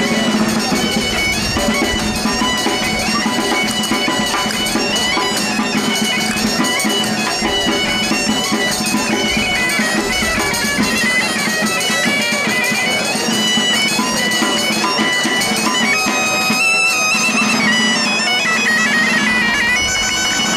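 Asturian bagpipe (gaita) playing a tune over its steady drone.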